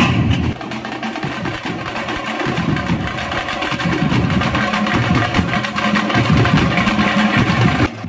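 Festival drum band of large barrel drums and hand drums playing a fast, dense, continuous rhythm. It starts about half a second in and drops off just before the end.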